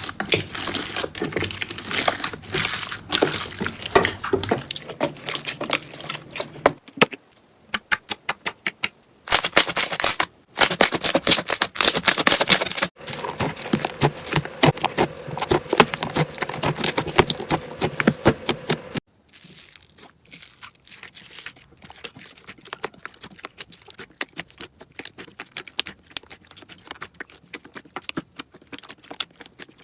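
Slime being squeezed, poked and stretched by hand, a dense run of wet crackling and popping clicks. It comes in several short takes that change abruptly, with brief gaps between them, and the last third is quieter.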